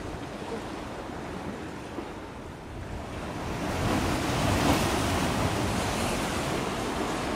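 Waves washing and wind outdoors, a steady noise that swells louder about halfway through.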